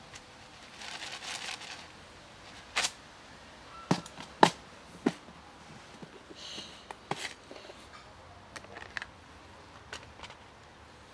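Sharp plastic clicks and snaps with short rustles, from a clip-lock plastic food box being handled and its lid unclipped. The clicks come singly and unevenly, the loudest about four and a half seconds in.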